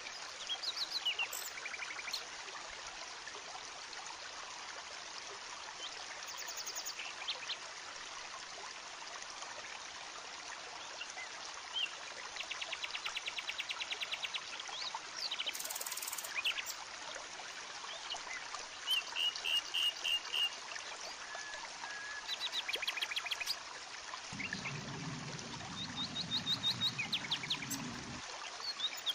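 Shallow forest stream trickling steadily over rocks, with birds chirping and trilling in short repeated bursts over it.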